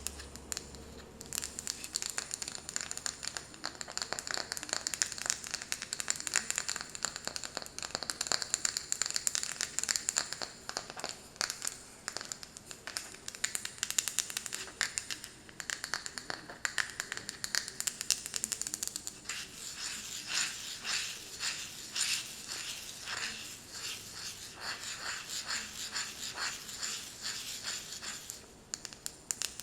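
Fingernails tapping and scratching quickly on a wooden lid, a dense patter of small clicks. From about twenty seconds in, the taps come as more distinct, rhythmic strokes.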